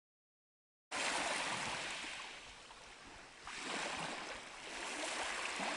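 Small lake waves washing onto a sand beach: a hiss that swells, ebbs and swells again. It starts abruptly about a second in.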